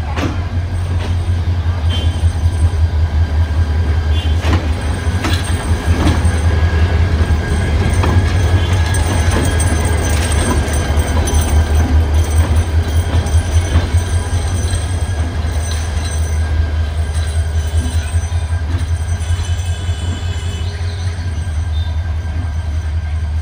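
Bangladesh Railway class 2900 diesel-electric locomotive passing slowly at close range over a set of points. Its engine gives a steady low rumble. The wheels click over the rail joints and points, with an intermittent high squeal from the wheels on the turnout.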